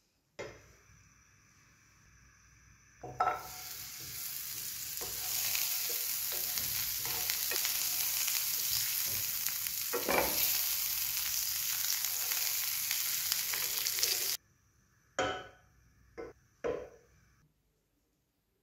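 Butter melting and sizzling in a hot non-stick frying pan, stirred with a wooden spatula, with a few scrapes along the way. The sizzle cuts off suddenly near the end, followed by three short knocks.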